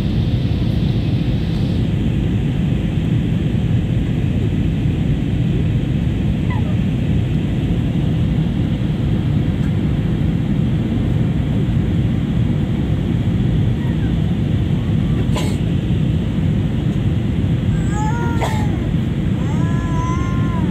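Steady cabin noise inside a jet airliner on its descent, a loud even rumble strongest in the low range. Near the end come a few short high cries that rise and fall.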